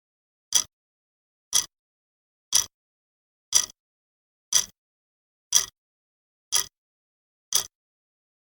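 Clock ticking once a second, evenly, with dead silence between the ticks: a countdown-timer sound effect marking the time allowed for a one-minute challenge.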